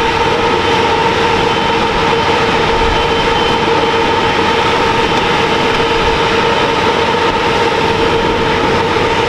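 School bus engine running steadily: a loud, even noise with a constant whine that holds the same pitch throughout.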